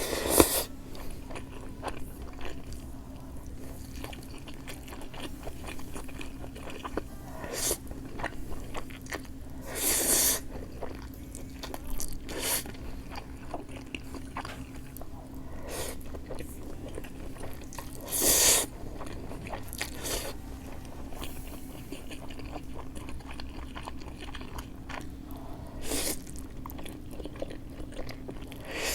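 Close-miked eating of thinly sliced grilled pork belly and spicy cold noodles: steady chewing and biting with small wet clicks, broken by a few louder noisy bursts about half a second long.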